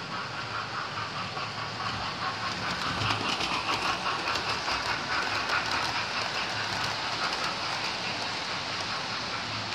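Model railway trains running on the layout's track: a steady mechanical running noise with fast, regular clicking of wheels on the rails. It grows louder a few seconds in as a train passes close by.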